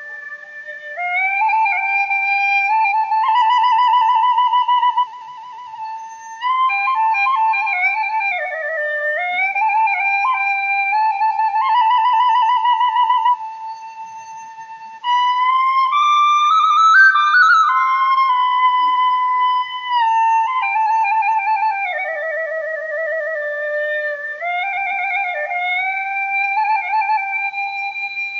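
Background music: a slow solo melody on a flute-like wind instrument, one line of long held notes with a wavering vibrato. It climbs to its highest notes about two-thirds of the way through.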